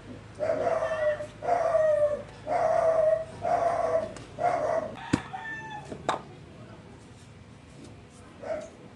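An animal calling loudly five times, about once a second, followed by two sharp clicks.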